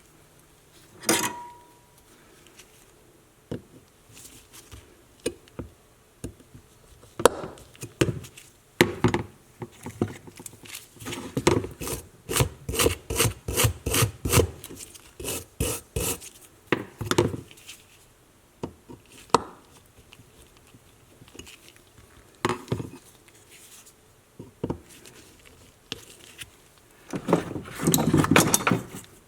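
Hand scraping and rubbing strokes on a vintage leather hole punch during restoration work. The strokes are scattered at first, then come as a fast back-and-forth run of about three strokes a second in the middle, with a longer stretch of steady scrubbing near the end.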